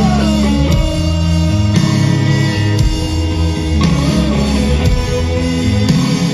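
Indie rock band playing live, guitars carrying the song over bass and drums, with a gliding voice or guitar line rising over the band just after the start and again about four seconds in.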